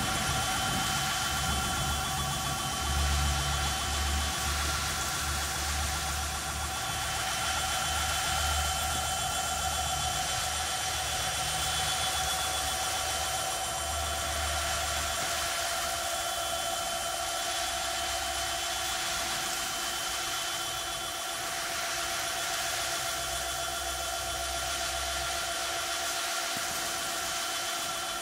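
A 1500 W direct-drive brushless gearless hub motor spinning a bike's rear wheel freely at a steady speed. It gives a constant high whine over a hiss, with an uneven low rumble underneath.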